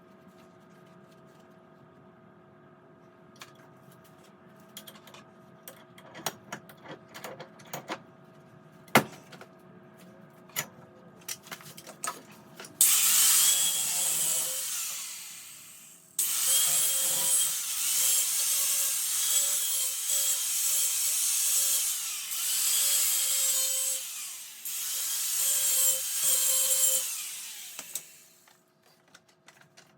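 Scattered metal taps and clanks, then an angle grinder working steel in two long runs. It starts abruptly each time and winds down gradually when released.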